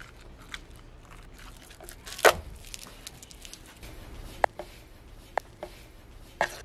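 Foil lollipop wrappers crinkling and plastic lollipop parts clicking as small wrapped lollipops are handled, with one sharp click about two seconds in and a few lighter clicks later.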